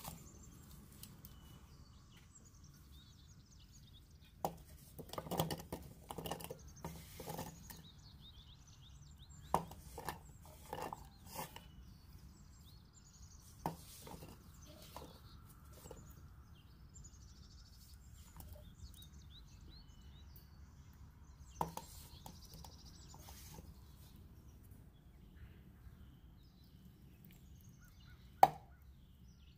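Scattered clinks and knocks of kitchen utensils and dishes during food preparation, the loudest a single sharp knock near the end. Faint bird chirps and a steady low hum run underneath.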